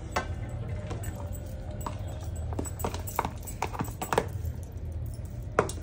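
Scattered light clicks and knocks as a plastic takeaway container and serving spoon tap and scrape against a steel thali plate while noodles are served out, over a steady low hum.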